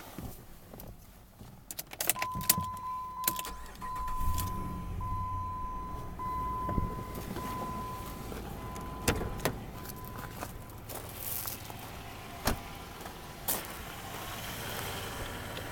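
Keys jangle and a warning chime of a 2005 Jeep Grand Cherokee beeps about once a second for several seconds, while its 5.7-litre Hemi V8 starts and settles into a steady idle. A few sharp knocks near the end.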